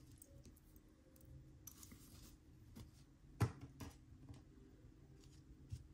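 Small metal jewelry being handled: a brief rustle about two seconds in, then one sharp click a little past halfway, followed by a couple of fainter clicks.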